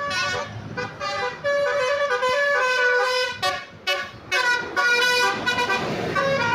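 A bus's 'basuri' telolet horn, a multi-note musical horn, playing a tune of short and held notes with a few brief breaks, over the low running of the bus engine.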